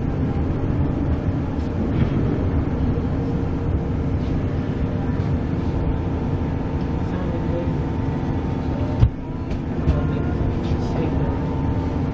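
Inside the carriage of a Queensland Rail NGR electric train running: a steady rumble of wheels on the rails under a steady motor hum. A single thump about nine seconds in.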